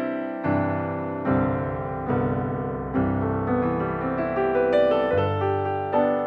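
Background piano music: slow chords, a new one struck about every second and each fading away.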